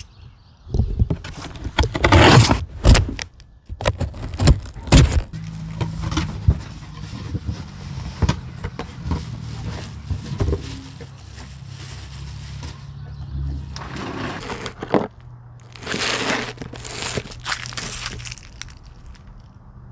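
A cardboard shipping box being cut open and unpacked: a knife slitting packing tape, cardboard flaps scraping, and a plastic bag crinkling, in a string of scraping and crackling noises.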